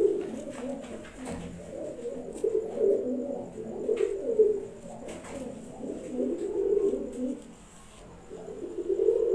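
Pakistani Highflyer pigeons cooing: low, repeated coos in phrases every second or two, with a few light clicks between them.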